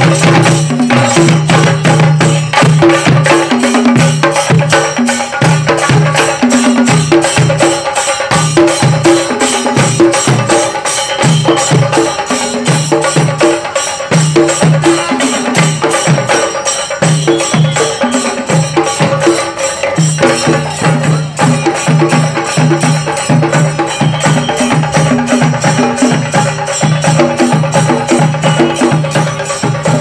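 Chenda melam: a group of Kerala chenda drums beaten with sticks in a fast, continuous rhythm of rapid strokes, loud throughout.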